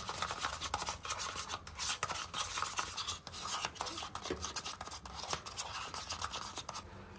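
Paint being stirred in a small paper cup with a mixing stick: a quick, irregular swishing and scraping against the cup's wall as colourants are blended to match a touch-up colour.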